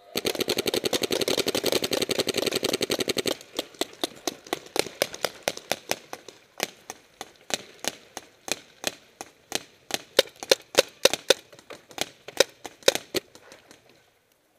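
Paintball markers firing: a fast, dense string of shots for the first three and a half seconds, then scattered single shots and short strings.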